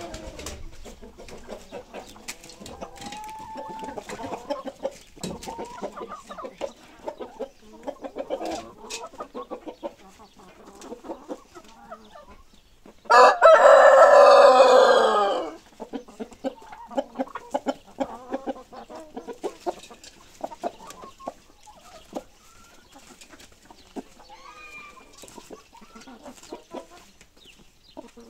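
Chickens clucking, with a rooster crowing once near the middle, a loud call lasting about three seconds.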